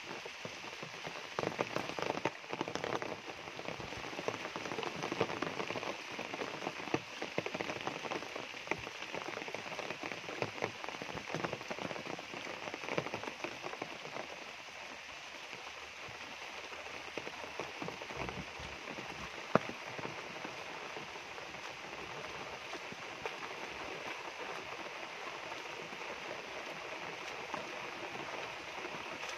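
Steady rain falling on dense foliage and a wet dirt path, with many sharper close taps of drops through the first half and one loud tap about two-thirds of the way through.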